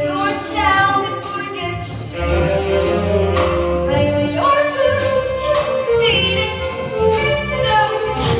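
Musical theatre song: singing over instrumental accompaniment.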